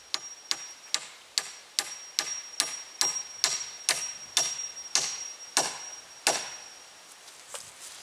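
A hammer driving a nail into a tree-pole fence rail, a steady run of sharp strikes at about two and a half a second, stopping about six seconds in.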